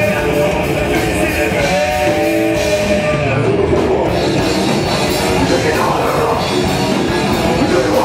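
Live metal band playing: electric guitar and drum kit, with the vocalist singing into a microphone.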